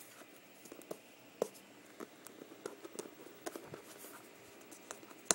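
Fingernails scratching and picking at the plastic shrink-wrap on a new MacBook Pro's aluminium case: light, irregular scratches and small clicks, with a sharper click just before the end.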